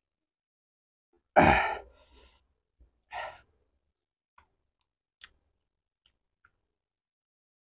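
A man's loud sighing exhale about a second and a half in, then a shorter breathy puff, as he blows out through pursed lips against the heat of very spicy chilli sambal. A few faint clicks follow.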